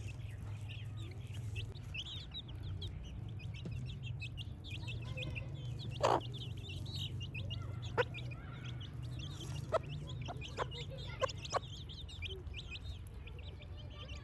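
A group of baby chicks peeping continuously, many short, high, falling peeps overlapping. Several brief sharp sounds stand out louder than the peeping: one about six seconds in, then a quick series in the second half. A steady low hum runs underneath.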